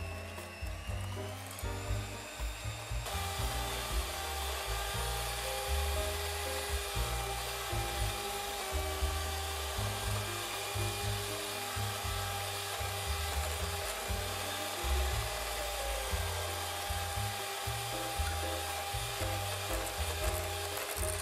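Electric hand mixer running with its twin beaters whisking butter and sugar, then eggs, into a creamy batter. The motor whine rises in pitch about a second in, and the sound grows fuller about three seconds in.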